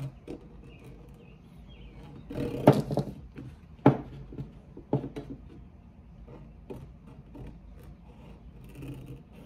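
Hacksaw cutting through the lip of a kayak scupper plug: uneven scraping strokes with a few sharper knocks, starting about two seconds in.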